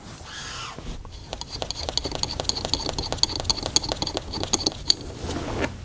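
Rapid light clicking and rattling of small metal airgun parts being handled as the FX Wildcat's tube connector and adapter are worked apart by hand. The clicks come thick and fast from about a second in and thin out near the end.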